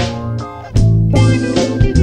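Background music led by plucked guitar over bass and drums.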